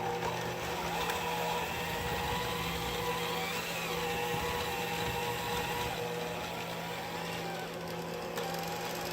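Small electric hand mixer running steadily, its beaters whipping ice cream in a plastic cup; the motor's pitch wavers slightly under the thick load.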